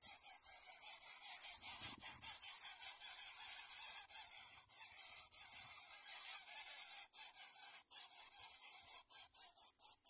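A steady, high-pitched rasping hiss pulsing rapidly and evenly, breaking into separate pulses near the end.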